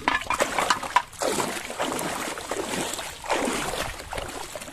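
Shallow water splashing and sloshing as someone wades and lowers a plastic bottle fish trap into it, in two swells, after a few sharp knocks in the first second.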